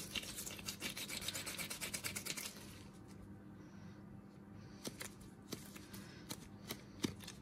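Fingers rubbing and crumbling a lump of drying crushed-chalk paste. A dense, fine crackly rubbing runs for about two and a half seconds, then turns quieter, with a few light clicks and taps.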